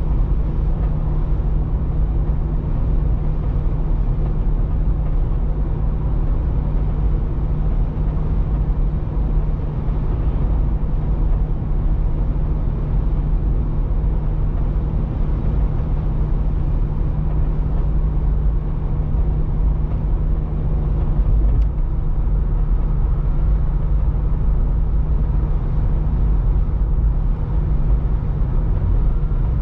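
Steady road noise inside a car's cabin at highway speed: a continuous low rumble of tyres and engine that holds level throughout.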